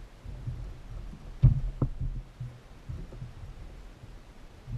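Low, irregular thumps and knocks on a plastic kayak as a largemouth bass is fought and landed, with a low rumble under them. The loudest is a sharp knock about a second and a half in, followed by a smaller one.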